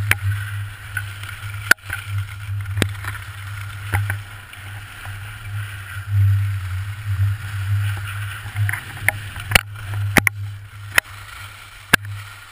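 Wind rushing over a GoPro's microphone during a fast ski run, a low rumble that swells and fades, over the hiss of skis carving the snow. Several sharp knocks cut through it, most of them in the second half.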